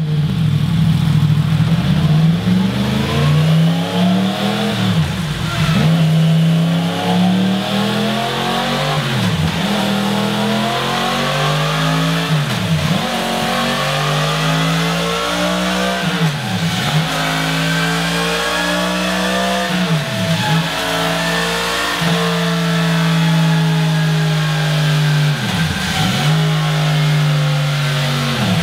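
Yamaha MT-10's crossplane inline-four on its stock exhaust, running under load on a chassis dyno with the rear wheel spinning. Its pitch climbs and drops in steps several times as it is revved, then holds a steadier note for a few seconds near the end.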